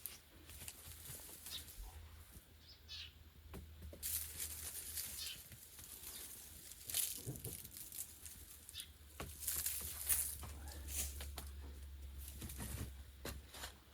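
Rustling in several bursts, with a few light clicks between them.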